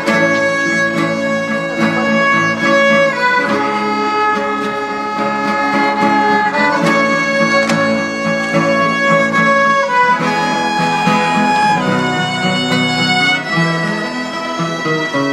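Violins playing a slow melody of long held notes, with acoustic guitars accompanying underneath.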